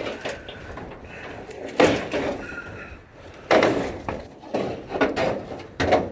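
Pieces of an old shed being torn loose and thrown down: a run of heavy bangs and clattering impacts, about five in a few seconds, with a brief ringing after one of them.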